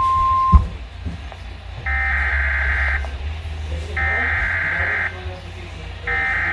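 Weatheradio alert signal off a weather radio: a steady 1050 Hz warning tone cuts off with a click about half a second in, followed by three bursts of warbling digital SAME data tones, each about a second long and a second apart, over a low hum.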